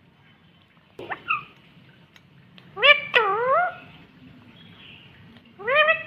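Rose-ringed parakeet calling: a short upward squeak about a second in, then a loud two-part call just before halfway that rises, dips and rises again, and another rising call near the end.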